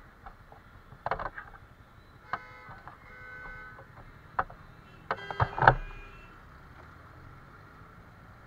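Street traffic with a low engine hum, broken by several short horn-like beeps and a few clicks. The loudest cluster comes just after the middle.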